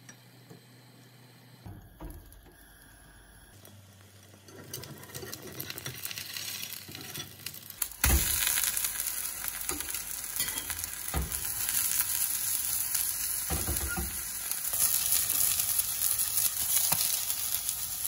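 Batter with chopped red onion frying in a nonstick pan on a gas hob. It starts faint as a fork stirs it, the sizzle builds from about four seconds in and turns loud after about eight seconds, with a few sharp clicks.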